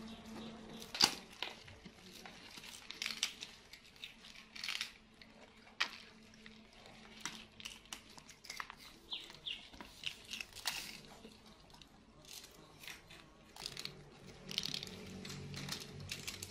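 Irregular light crackling and small clicks from a cake wrapper handled by a young macaque, with a sharp tap about a second in.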